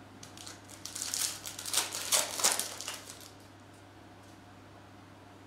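Trading-card pack wrapper crinkling as the pack is opened and the cards are pulled out: a burst of rustling that stops a little over three seconds in.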